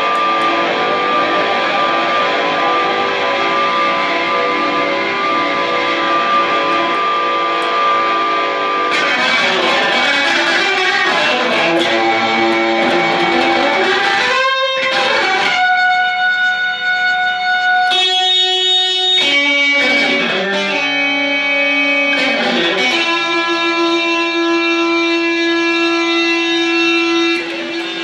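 Electric guitar improvisation through effects: a dense wash of layered held notes for the first third, then separate long sustained notes that shift pitch every second or two, with a couple of brief breaks, settling into a held low note near the end.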